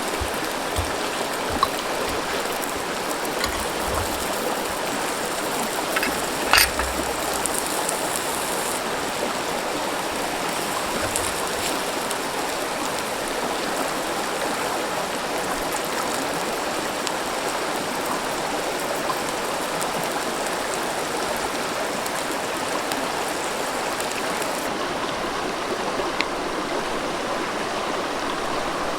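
River water flowing steadily over rocks, with a few brief clicks, the loudest about six and a half seconds in.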